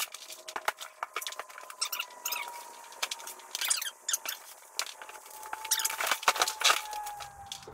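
Cardboard box flaps and plastic packaging rustling, scraping and crinkling as an e-bike shipping box is opened and the plastic-wrapped bike is lifted out, with the densest crinkling near the end.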